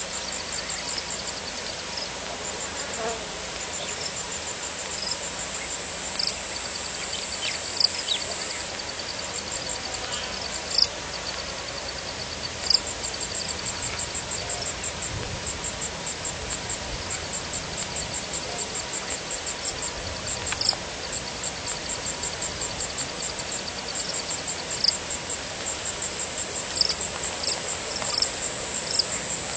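Insects chirping in rapid high-pitched pulse trains, with a sharp click every few seconds.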